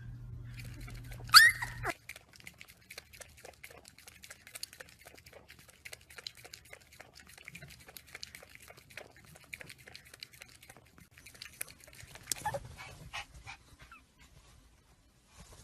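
Puppy giving a short, high yelp a little over a second in, followed by a run of quick small clicks and taps. A second, weaker yelp comes about twelve seconds in.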